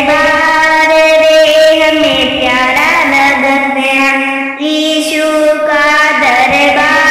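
Devotional singing in a chant-like style: a voice holding long notes that slide from one pitch to the next, with no instruments heard beneath it.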